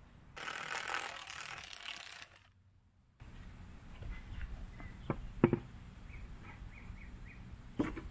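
A wooden sill plate board being handled and laid onto concrete piers: a few sharp wooden knocks about five seconds in, and another just before the end as the board is set down. Before them comes a two-second rush of hiss, and a low rumble runs under the knocks.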